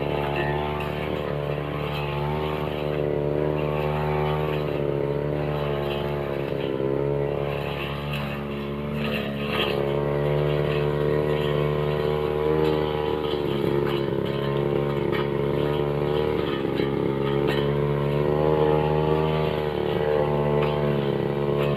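Backpack brush cutter engine running hard as its steel blade cuts through grass mixed with woody stems and roots. The engine note sags and recovers several times as the blade bites into the growth.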